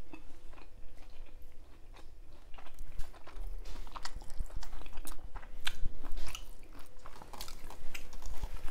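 Close-miked chewing and crunching of a mouthful of food, a run of short, irregular crisp clicks.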